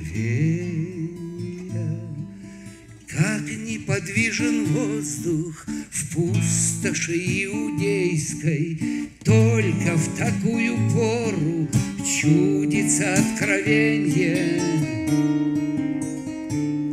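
A man singing with his own strummed acoustic guitar accompaniment.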